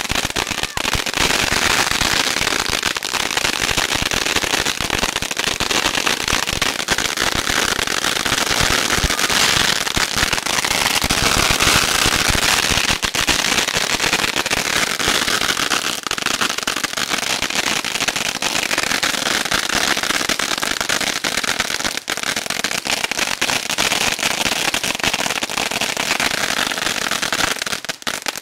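A huge string of firecrackers, about 120,000, going off in one long, continuous dense rattle of pops with no pause. It thins out briefly near the end.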